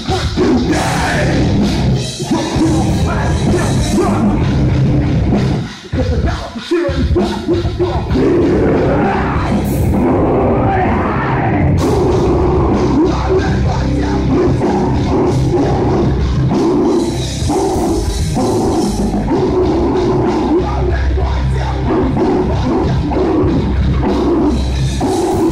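Live heavy metal band playing: distorted electric guitars, drums and a vocalist shouting into a handheld microphone. There is a brief break in the playing about six seconds in.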